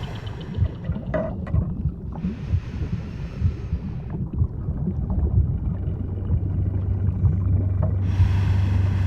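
Underwater ambience: a deep, continuous rumble with a low steady hum coming in about halfway through. A stretch of hiss runs through the middle seconds, and another starts near the end.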